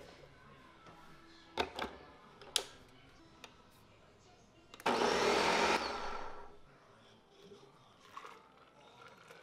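Ninja Professional countertop blender switched on at its lowest speed. It runs for about a second, blending a liquid protein shake, then winds down. Before it starts there are a few short knocks.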